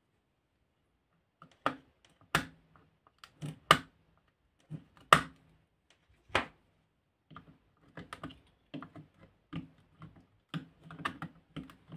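Irregular sharp clicks and knocks from hands handling a lithium-ion scooter battery pack and its BMS circuit board. A few loud separate knocks come first, and from the middle on the clicks come closer together and fainter.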